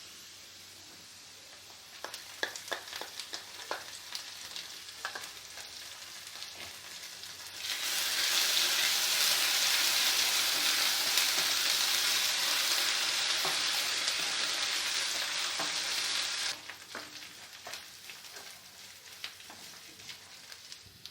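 Ginger-garlic paste frying with onions in hot oil in a pan: a spoon scrapes and stirs, then a loud sizzle runs for about eight seconds from near the middle and stops sharply, and the scraping and stirring carry on more quietly.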